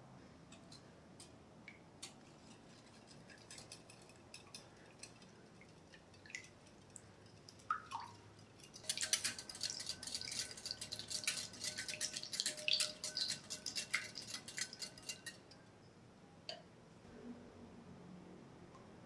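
Wire hand whisk beating a liquid egg-and-milk flan mixture in a glass bowl: about six seconds of fast, irregular clicking of the wires against the glass, with the bowl ringing faintly under it, starting about nine seconds in. Light scattered clicks of utensils and bowl before and after.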